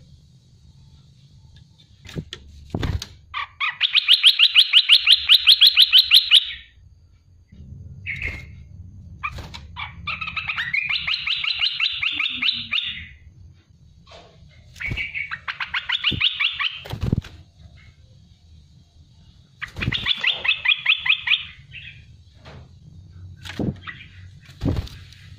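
Olive-winged bulbul singing four bursts of rapid, chattering runs of repeated notes, each lasting two to three seconds. A faint low rumble and a few short knocks sound in between.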